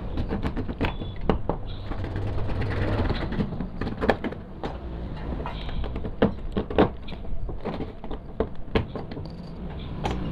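A short piece of hacksaw blade, held in the hand, sawing and scraping through the seal of a hard plastic container, giving irregular scratchy rasps and sharp clicks over a steady low background hum.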